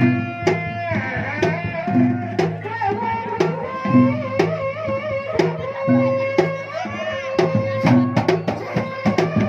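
Sundanese reak ensemble music: drums beating a steady rhythm of about two strokes a second, under a wavering, bending melody line.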